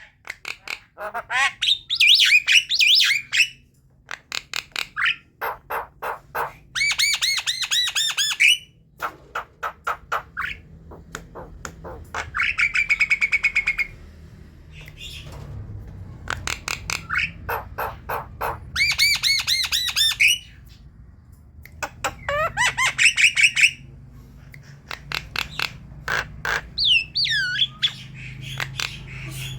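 Javan myna chattering: bursts of harsh squawks, fast clicking rattles and held whistles, each a second or two long and broken by short pauses, with a few falling whistled notes near the end.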